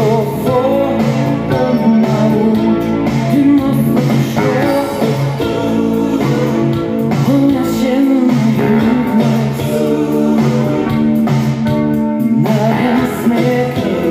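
1980s Swedish pop-rock recording: a woman singing over guitar and a full band, loud and steady.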